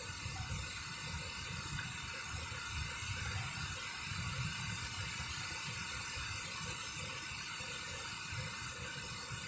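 Steady rushing hiss of water pouring over a dam spillway, with wind buffeting the microphone in irregular low rumbles.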